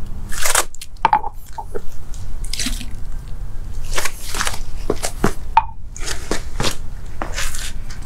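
Liquid is poured into carved pumpkins, then comes a series of short scuffs and crunches as plastic cups are set down and feet move on paving stones. A steady low rumble of wind on the microphone runs underneath.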